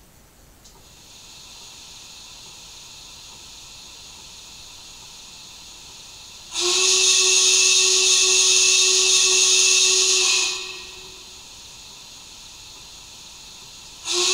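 Steam sound effects from a Märklin gauge 1 G8.1 model steam locomotive standing on its track. A soft steady hiss starts about a second in. About six and a half seconds in, a loud steam whistle blast with hissing steam lasts about four seconds, and another begins right at the end.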